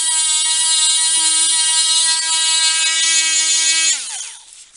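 Small handheld multi-speed rotary tool running with a steady high whine, then switched off about four seconds in, its pitch falling as the motor spins down.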